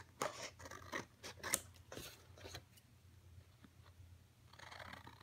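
Scissors snipping through a sheet of paper in a run of short, sharp cuts, pausing for a second or so before a few more snips near the end.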